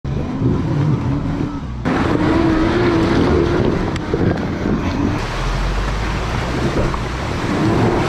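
Pajero Sport's diesel engine running under load off-road, its pitch wavering, mixed with wind noise on the microphone. The sound changes abruptly about two seconds in and again about five seconds in.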